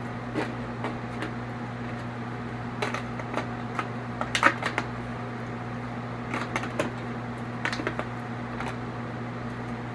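Disposable aluminium foil pan crinkling and clicking in short irregular bursts as raw steaks are handled and moved around in it, the loudest about four and a half seconds in, over a steady electrical hum.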